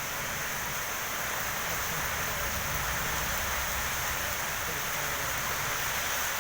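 Heavy rain falling in strong wind: a steady hiss, with gusts rumbling low underneath.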